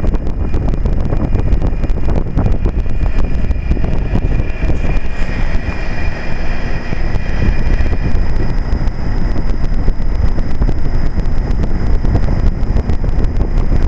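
1998 Trane XL1800 5-ton heat pump's outdoor unit running steadily in cooling mode: the condenser fan's rush over the reciprocating compressor's hum, with faint steady high tones. The compressor is on its low stage, as the owner believes.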